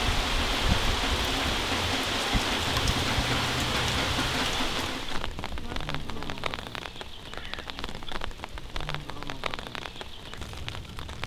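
Rain: a dense steady downpour for about five seconds, then thinning to scattered drops.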